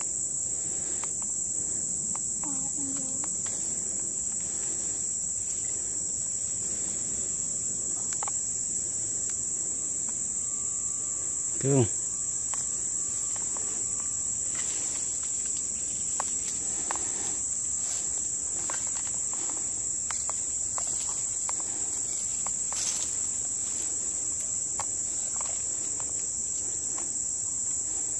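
Steady, high-pitched chorus of insects singing without a break, with scattered light crackles of leaves and twigs as people move through the brush.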